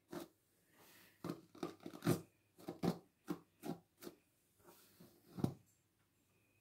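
Paddle hairbrush dragged hard through long hair: about a dozen short, scratchy strokes at an uneven pace, ending with a louder stroke about five and a half seconds in.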